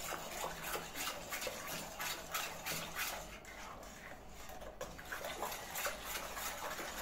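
A utensil stirring a milk, flour, sugar, egg-yolk and starch custard mixture in a pot by hand, the liquid sloshing with rhythmic strokes about two or three a second.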